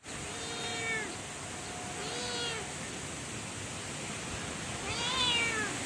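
Domestic cat meowing three times, each meow under a second long, the last the loudest, over a steady hiss.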